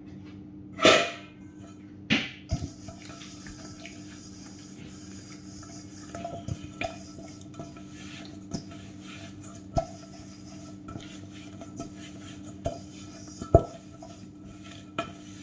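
Kitchenware being handled while drying dishes: a stainless steel mixing bowl and other dishes knock and clink now and then, the loudest knock about a second in, over a steady low hum.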